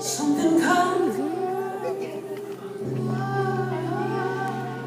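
Female vocalist singing a wordless run that slides up and down in pitch over held keyboard chords and bass, in a live band performance; the bass comes in stronger about three seconds in.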